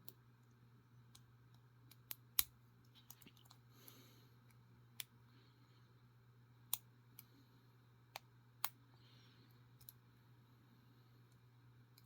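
Sparse, irregular metallic clicks of a lock pick and tension wrench working the pins of a vintage bronze Yale five-pin padlock during single pin picking, over a low steady hum.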